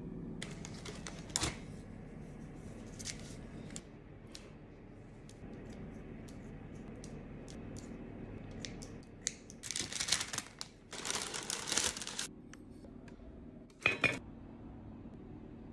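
Kitchen scissors snipping into sourdough dough on parchment paper, a run of short crisp cuts starting about nine seconds in. Near the end the enamelled cast-iron lid of a Le Creuset Dutch oven is set down with one sharp clank.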